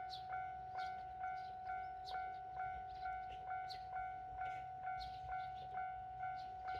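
Japanese railroad crossing alarm ringing its "kan kan" bell tone, struck evenly about twice a second.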